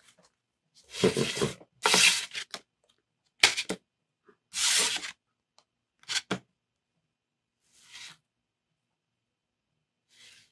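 Tarot cards handled and slid across a wooden tabletop: a string of short swishes and rubs, several in the first half and fainter ones near the end.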